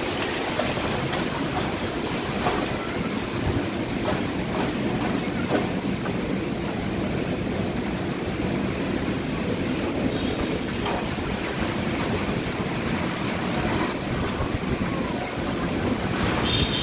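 Heavy rainstorm: rain pouring down steadily with gusting wind, an even rushing hiss without break.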